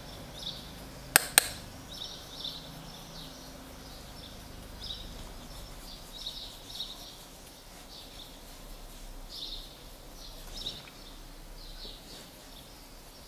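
Two sharp clicks about a second in, then soft, irregular swishes of a makeup brush sweeping powder blush over the cheek.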